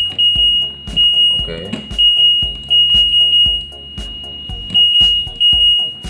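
Piezo buzzer on an LG 6 kg direct-drive front-loading washing machine's control panel beeping again and again as the program selector knob is turned: a series of short, high-pitched beeps of uneven length. The working buzzer is the sign that the repaired control board is responding again.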